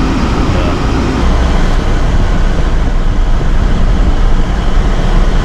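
Car heater fan blowing on full, a loud steady rush of air inside the cabin as the cold car is warmed up.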